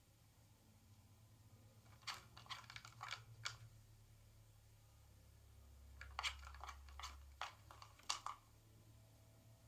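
Plastic parts of a Trixie dog activity puzzle clicking and knocking as cats paw and nose at it for treats, in two quick runs of several sharp taps, about two seconds in and again about six seconds in.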